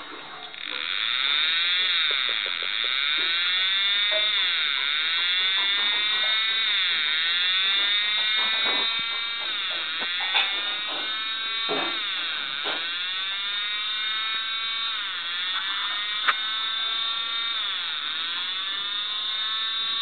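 Homemade model fan siren sounding a wail: a chord of several tones rising and falling in pitch every two seconds or so. It comes up to full strength about half a second in.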